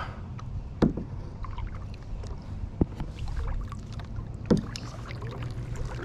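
A kayak being moved along the water, with a steady low rumble and three sharp knocks about two seconds apart, like a paddle or gear striking the hull.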